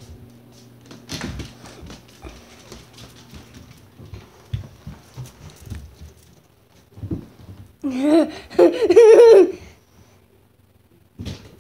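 A dog running after a laser dot: light, scattered taps and scuffs of its paws and claws on the floor. About eight seconds in comes the loudest sound, a wavering voice lasting about a second and a half.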